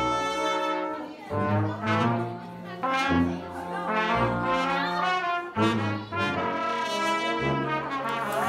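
Brass music: a slow melody of held notes, each lasting about a second before moving to the next.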